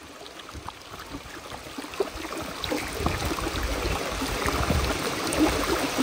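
Rushing water of the waterfall and its rocky stream, a steady hiss that grows louder throughout, with a few light clicks of footsteps on rock.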